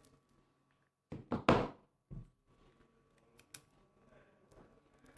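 A quick cluster of three thumps about a second in, then a single weaker thump, followed by a few faint light clicks.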